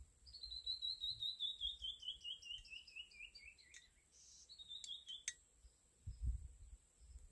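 A bird singing a long, evenly paced series of short whistled notes that slide steadily down in pitch for about three and a half seconds, followed by a brief second phrase. A few sharp clicks fall in the middle, and a short low rumble comes near the end.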